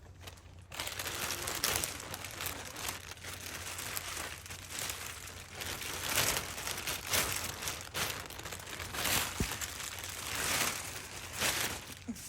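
Irregular rustling and crinkling of bags or fabric being handled and stuffed while gear is packed, in swells that come and go, starting about a second in.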